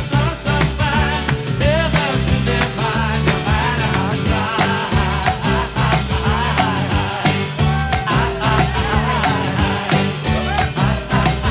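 Upbeat pop-rock music with a steady beat and a wavering lead melody line, and no clear lyrics.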